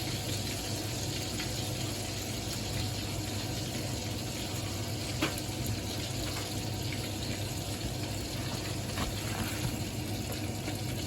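Pork frying in a pan, a steady sizzle, with one light click about five seconds in.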